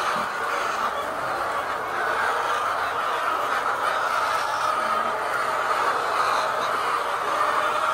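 A large flock of layer chickens in a poultry shed calling all at once, a steady, dense chorus of overlapping clucks and calls.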